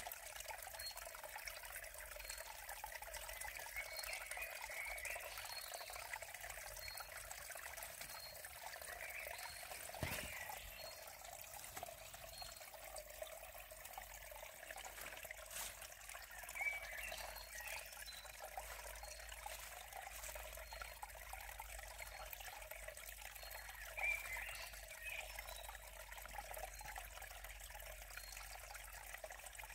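Shallow creek water trickling steadily and faintly, with a few short high chirps now and then.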